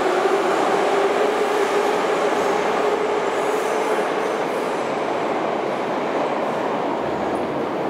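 Moscow Metro train running on the rails, a dense rumble with a steady whine that fades out about halfway through.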